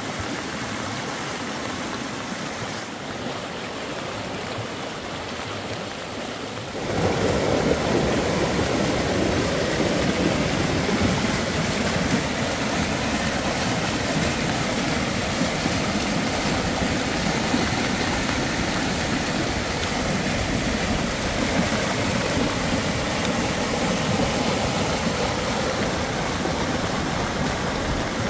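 Steady rushing noise of water, growing louder about seven seconds in.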